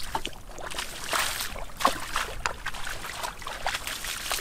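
Splashing and sloshing in shallow muddy water as a person wades and gropes in it by hand, in irregular splashes.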